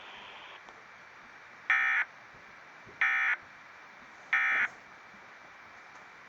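Emergency Alert System end-of-message (EOM) data tones: three short, harsh bursts of digital SAME code, about a second apart, marking the close of the alert, over faint broadcast hiss.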